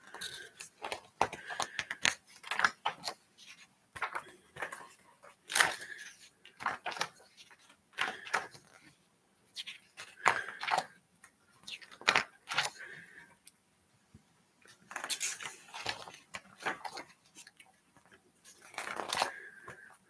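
Pages of a spiral-bound paper book being turned by hand: a quick run of paper rustles and flaps at irregular intervals, with short pauses between.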